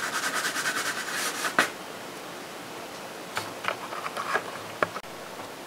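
Pencil shading rapidly back and forth on drawing paper, a quick run of scratchy strokes that stops about a second and a half in, followed by a few faint scratches.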